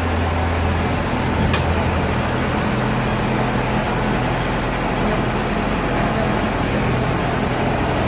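Tracked combine harvester's diesel engine running steadily as the machine crawls on its rubber tracks, with one sharp click about one and a half seconds in.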